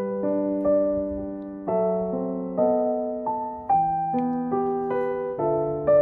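Background piano music: a slow, gentle melody over chords, each note struck and left to fade.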